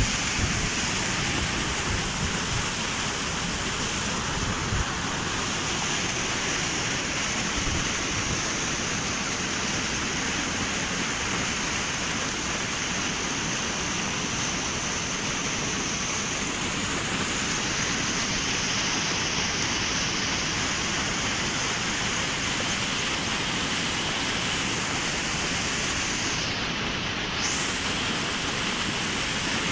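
Steady rushing of a fast-flowing river current, an even wash of water noise with no let-up.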